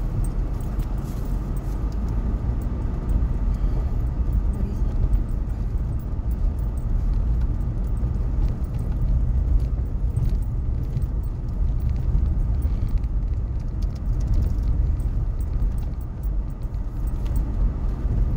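Cabin noise of a Jeep Renegade Trailhawk driving on a gravel road: a steady low rumble from the tyres and drivetrain, with small rattles and clicks over it.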